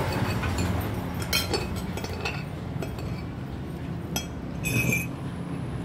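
A metal spoon and fork clinking against a plate and glass: a few separate clinks, the loudest one near the end ringing briefly.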